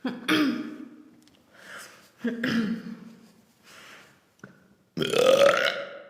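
A woman's small, deliberate burps made on command: a series of short burps, the last, about five seconds in, the loudest.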